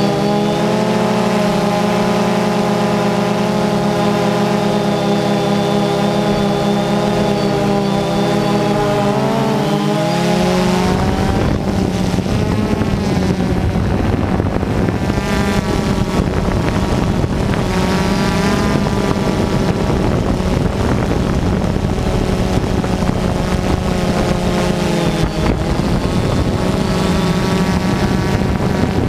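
Multirotor drone's electric motors and propellers whining, the pitch dipping and rising together with throttle changes. From about a third of the way in, wind rumbles on the microphone under the whine.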